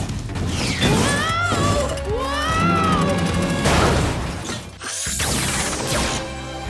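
Cartoon soundtrack: background music with electronic sound effects. Warbling pitch glides rise and fall in the first few seconds, and a rushing sweep comes about five seconds in.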